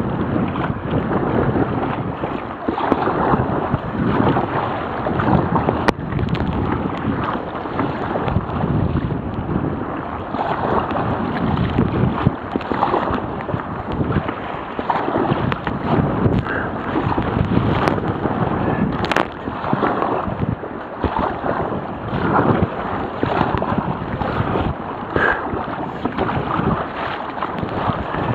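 Heavy wind buffeting the microphone of a waterproof camera on a sea kayak, with water sloshing and splashing around the boat in rough, gusty conditions. The noise surges up and down every second or two.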